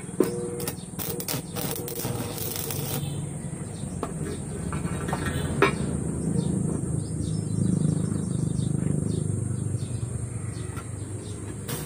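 Steel harrow blades and pipe being handled: metal scraping and clinking, with a sharp metallic click just after the start and another about halfway through, over a steady low hum.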